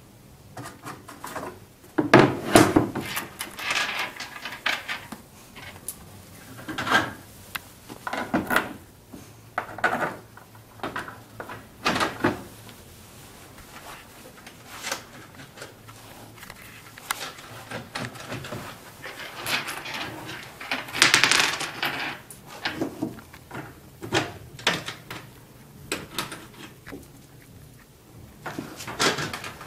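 Hand assembly of snow pusher parts: irregular knocks, clatter and rattles as loose nuts and bolts, a wooden board and a plastic blade are handled on a workbench, loudest about two seconds in and again about twenty seconds in.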